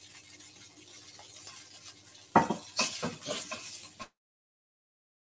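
Crumbled firm tofu frying in olive oil in a pan. A faint sizzle runs for about two seconds, then a utensil strikes the pan and stirs the sizzling tofu with scraping strokes. Just after four seconds the sound cuts out completely.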